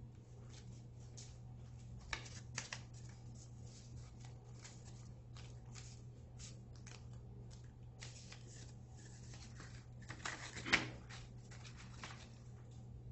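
Pleated craft paper rustling and crackling as the folded stack is squeezed and pressed between the fingers, with sharper crinkles about two seconds in and a louder crackle near the end. A faint steady low hum underneath.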